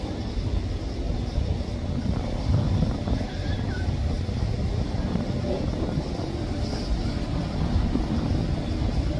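Low, uneven rumble of wind buffeting the microphone, mixed with boat motor noise on the water.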